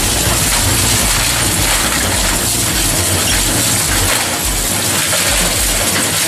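Industrial shredder running, a loud, dense, steady mechanical grinding noise with a pulsing low rumble.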